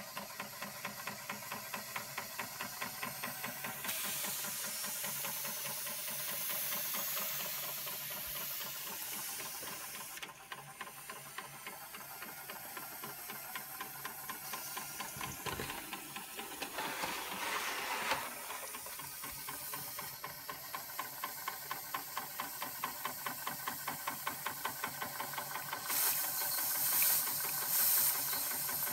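Early Schoenner toy steam engine running under steam: a fast, even beat of the little engine's strokes over a steady hiss of steam, with a couple of louder knocks midway and brighter spurts of hiss near the end.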